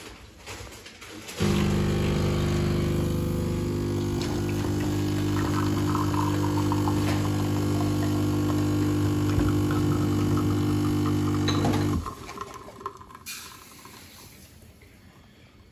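De'Longhi espresso machine's pump humming steadily as it pulls a single shot, starting about a second and a half in and cutting off after about ten seconds.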